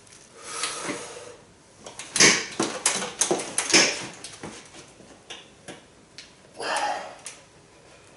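30 kg hex dumbbells clanking and knocking as they are picked up and brought up to the shoulders for a seated press, with a cluster of sharp knocks between about two and four seconds in. A couple of hard breaths from the lifter come near the start and about seven seconds in.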